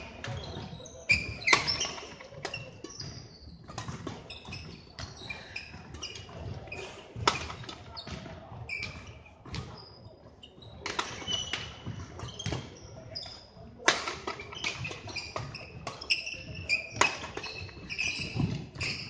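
Doubles badminton play on a wooden indoor court: irregular sharp knocks of rackets striking the shuttlecock and feet landing, with short high squeaks of court shoes.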